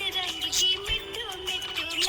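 Budgies chirping and warbling in rapid, wiggly trills over a Bollywood song with singing.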